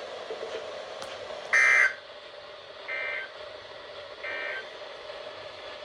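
Emergency Alert System end-of-message signal: three short bursts of digital data tones, each about a third of a second long and about a second and a half apart, the first the loudest. A faint steady hiss lies under them.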